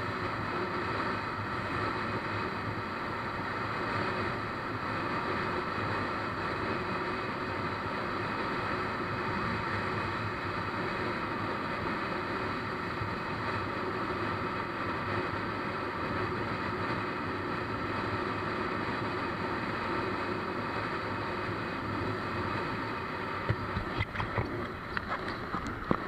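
Motorcycle running at a steady cruising speed, its engine note mixed with the rush of wind and road noise. A few sharp knocks come near the end.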